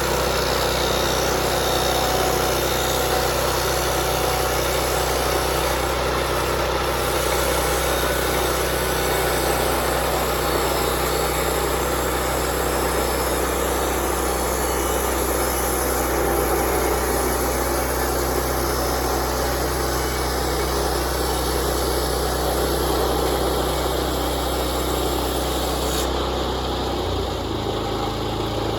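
Portable bandsaw sawmill running steadily, its gas engine under load as the band blade cuts through a pine log. Near the end the high cutting hiss drops away and the engine note changes.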